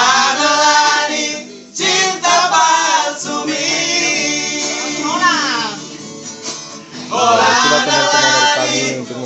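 A group of men singing a song together to an acoustic guitar, in several sung phrases with short breaks between them.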